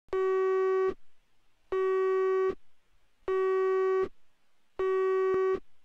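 Telephone line tone through the handset: a buzzy beep repeated four times, each a little under a second long with gaps of about the same length, as a call waits to connect.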